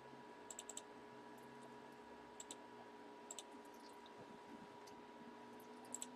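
Faint clicking at a computer, in quick pairs and small clusters every second or two, over a faint steady hum; otherwise near silence.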